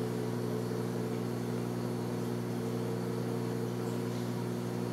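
Steady low hum made of several even tones, holding at one level without change.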